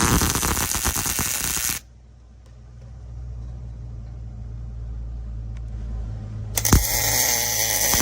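Wire-feed welder arc crackling while laying a weld on steel roll-cage tubing. The first weld stops abruptly about two seconds in, leaving a low hum, and a second weld starts near the end.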